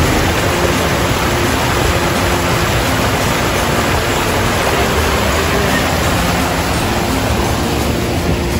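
Water rushing over a small cascade in a clear river: a steady, even rush of white water.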